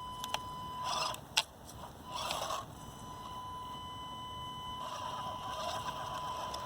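Axial SCX24 micro crawler's small brushed motor and gears whirring in short bursts as it tries to crawl on the low throttle setting, three brief bursts and then a longer one near the end. A steady high whine runs underneath, and a single sharp click comes about a second and a half in.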